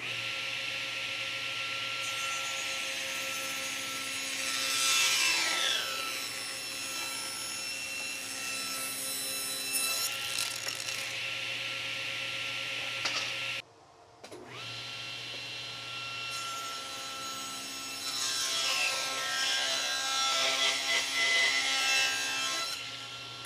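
Table saw running steadily while ripping wood, in two cuts. The first is a thin strip fed with a push stick, with the blade noise swelling about a quarter of the way in. The second is a thick 8/4 board near the end, louder and longer, with falling streaks of cutting noise as the blade loads.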